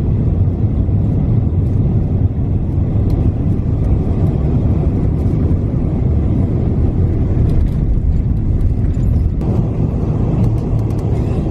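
Jet airliner cabin noise: a loud, steady low rumble of engines and airflow inside the cabin.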